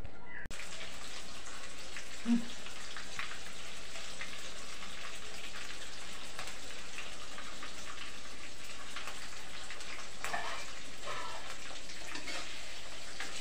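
Vegetables frying in oil in a wok on a gas stove: a steady sizzle full of fine crackles.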